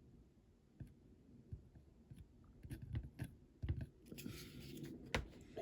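Faint scattered clicks and taps of small metal parts and tools being handled on a workbench, with a short rustle about four seconds in and a sharper click soon after.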